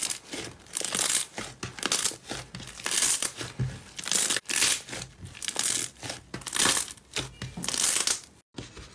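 Hands squeezing and pulling apart a large lump of thick, pearly green slime: a crinkly, crackling squish with each squeeze, coming in waves about once or twice a second. It cuts off suddenly near the end.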